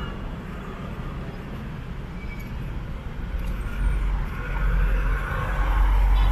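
Street traffic: a motor vehicle's engine rumble grows louder about halfway through as it passes close by.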